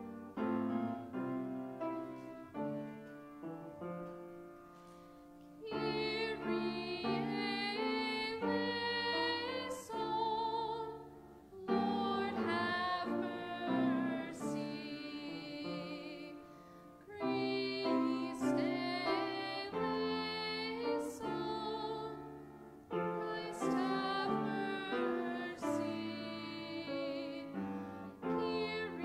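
Church music: a piano plays an introduction, then a singer comes in about six seconds in and sings with vibrato over the piano, in phrases with short breaks between them.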